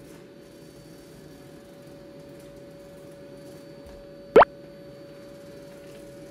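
Robot vacuum running with a steady hum and a constant whine. About four and a half seconds in, a single short, loud pop that sweeps quickly upward in pitch.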